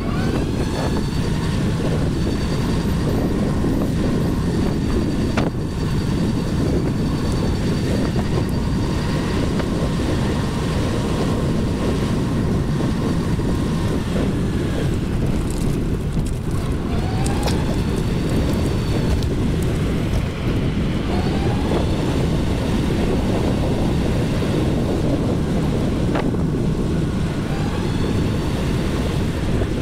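Steady wind rumble on the microphone of a moving rider. Over it, a thin high whine rises in pitch and then holds steady, several times.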